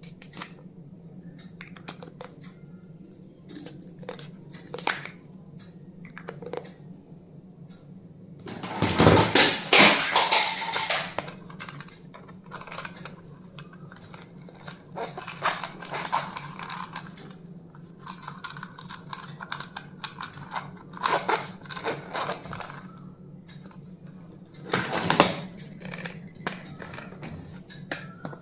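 Stationery items and their packaging being handled: scattered small clicks and taps, with louder rustling about nine to eleven seconds in and again briefly near twenty-five seconds, over a steady low hum.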